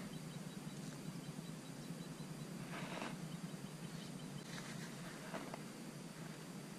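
Faint, steady lapping water and air noise around an open kayak, with a few brief splashy rustles as a small white perch is handled and let go.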